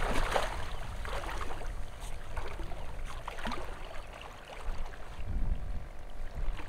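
Water sloshing and splashing around chest waders and boots as a person wades step by step into shallow water, over a low rumble of wind on the microphone.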